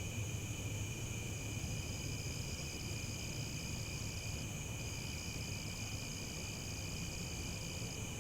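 Several crickets chirping together in steady, continuous trills at different pitches. A higher-pitched one joins about a second in, drops out briefly midway and stops near the end.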